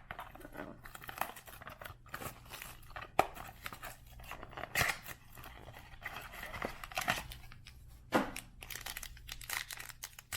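Trading card pack wrapper being torn open and crinkled, with irregular rustling and a few sharper snaps as the cards are handled.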